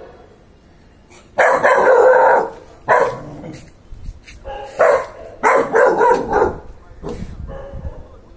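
Rottweiler barking loudly, a series of barks starting about a second and a half in.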